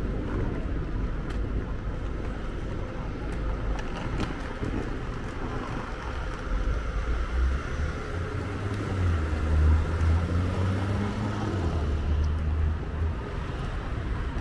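Town street traffic: a steady low rumble of road noise, with a vehicle engine's hum swelling from about halfway through and fading near the end as it passes.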